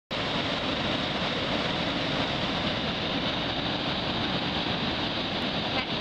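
A waterfall about 15 metres high pouring, making a steady, very loud rush of falling water.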